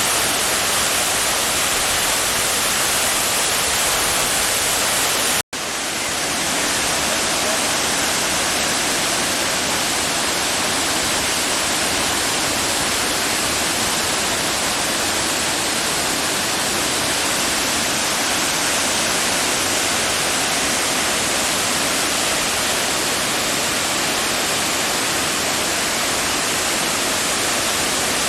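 Mallalli Falls, a waterfall on the Kumaradhara River, rushing steadily as one loud, even roar of falling water. The sound drops out for an instant about five and a half seconds in, then returns unchanged.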